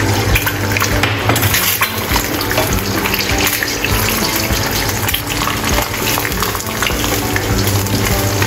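An egg frying in hot oil in a nonstick wok, sizzling with steady fine crackling.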